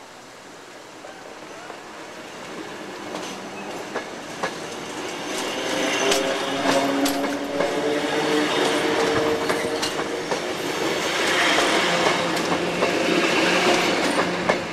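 English Electric electric multiple unit train passing close by on the move. It grows louder over the first few seconds, with wheels clicking over rail joints and a steady hum, and stays loud as the cars go past.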